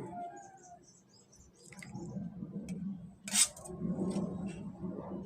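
A few light clinks and knocks of a utensil against cookware, the loudest about three and a half seconds in.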